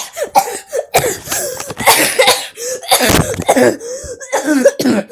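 A person coughing in a fit: a quick run of about ten harsh coughs, one after another, with voiced catches between them.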